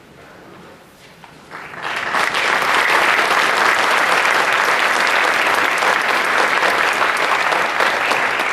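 Audience applauding, coming in about a second and a half in and quickly building to steady, dense clapping.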